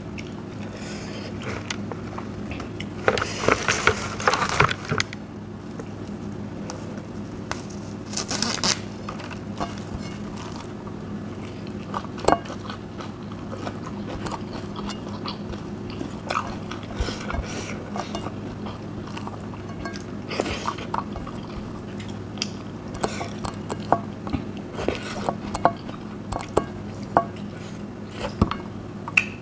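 A person eating close to the microphone: crunchy bites about 3 to 5 seconds in and again near 9 seconds, then softer chewing with scattered short clicks, over a steady low hum.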